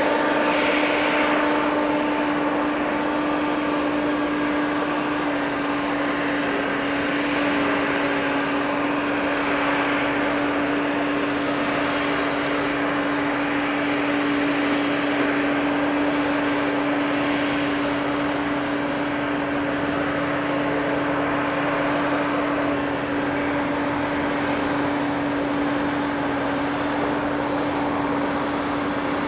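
Heavy construction machinery engine running steadily: a constant droning hum over a rumble of site noise.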